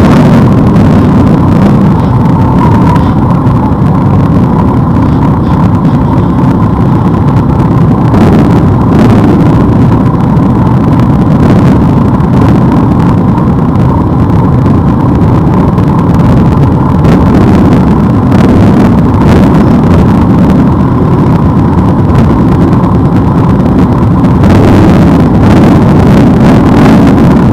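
A group of motorcycles running at low speed close by, a loud, steady mix of engine noise with no breaks.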